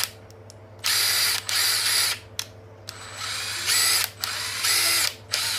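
Cordless brushless impact driver running free with no load, in a series of short trigger pulls, each a burst of motor whine; the whine sits higher in pitch during the middle bursts.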